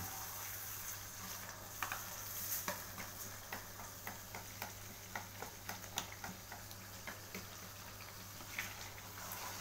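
A spatula stirring thick chili sauce (sambal) in a wok, its blade knocking and scraping against the pan in a run of short clicks, two or three a second, over the sizzle of the sauce cooking down to drive off its water.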